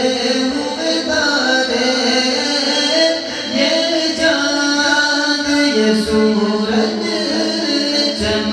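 A man's voice singing a naat (Urdu devotional poem in praise of the Prophet) into a microphone, in long held melodic notes.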